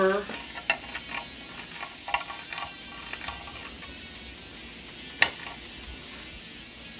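A plastic video case handled and set down: a few light clicks and taps, then one sharp click about five seconds in, over a faint steady hiss.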